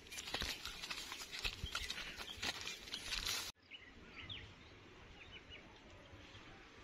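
Footsteps and rustling of leaves and branches as a person walks a narrow path through dense shrubs. It cuts off abruptly about halfway to a quieter outdoor background with a few short, high bird chirps.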